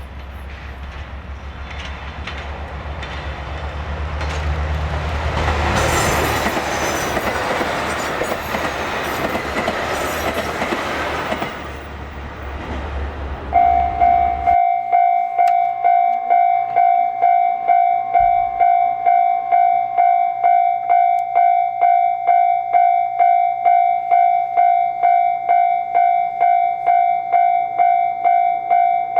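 JR Shikoku 2000 series diesel train running past, its engine hum and wheel rumble swelling to a peak and then fading. After an abrupt change about halfway through, a level-crossing alarm rings, a steady electronic tone pulsing about twice a second.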